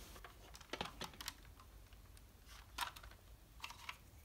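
Faint, scattered clicks and taps of hard plastic model-kit parts being handled and pulled off, as the underside panels and landing gear come away from the model.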